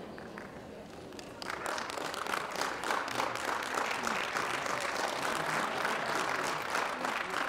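Audience applauding, the clapping swelling up about a second and a half in and keeping on.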